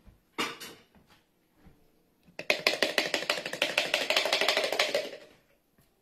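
Metal spoon scraping quickly around the inside of a glass jar: a couple of soft clinks, then a fast run of scrapes and clicks, roughly ten a second, for about three seconds.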